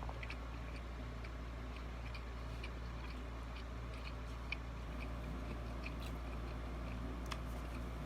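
A person chewing a mouthful of food, with a few faint crunchy clicks now and then, over a steady low hum.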